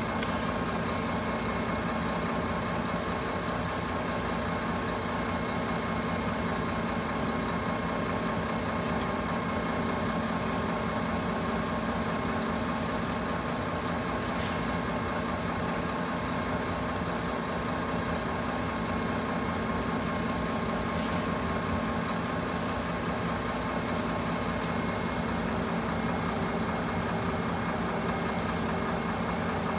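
Road vehicles idling while they wait at a closed level crossing: a steady engine hum with a faint regular pulsing under it.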